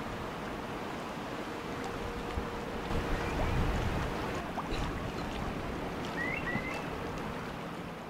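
Outdoor riverside ambience: wind rumbling on the microphone over the wash of the river water. A bird chirps twice, about six seconds in.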